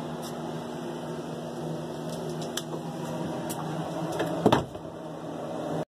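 A steady low mechanical hum, with a few faint clicks and one brief bump about four and a half seconds in.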